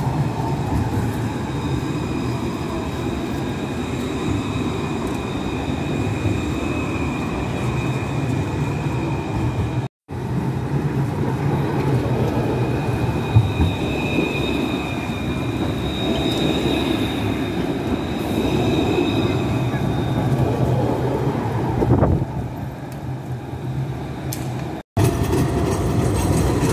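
A city tram passing close by: steady rolling noise from the steel wheels on the rails, with a thin high whine over it that is strongest in the middle stretch. The sound breaks off abruptly twice.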